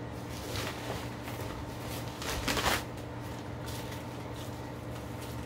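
Packaging rustling and crinkling as a package is torn open by hand, in scattered bursts with the loudest about two and a half seconds in, over a steady low hum.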